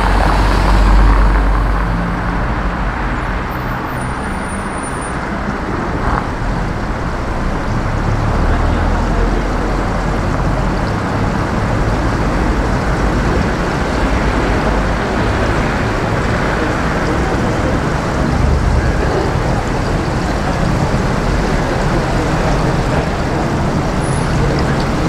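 Steady city street traffic noise: engines and tyres of passing cars, a little louder about a second in.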